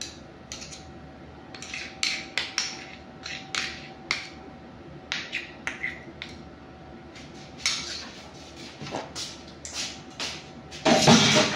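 Metal ladle clicking and tapping against baking pans as cake batter is ladled into cupcake liners: light, scattered clicks over a faint steady hum, with a louder clatter near the end.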